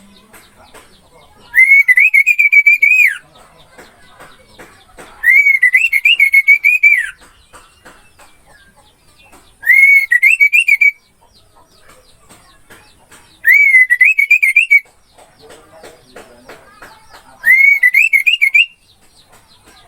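A clear, warbling whistled song phrase, opening on a rising note and then trilling up and down, repeated five times at about four-second intervals, with faint chirps and clicks between the phrases.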